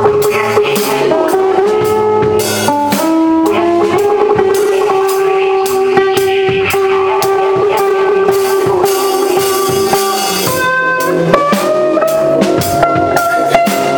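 Live band jam: drum kit and guitar playing, with a melody of long held notes that step up and down in pitch over the beat.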